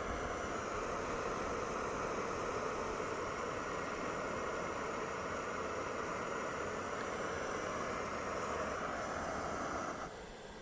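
Jetboil camping stove's gas burner hissing steadily under a pot of water brought to the boil, cut off about ten seconds in as its valve is turned down.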